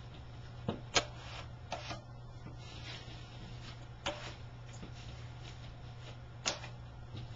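Spackling compound being spread and feathered out over a drywall patch: a handful of short scrapes and clicks from the tool on the wall, over a steady low hum.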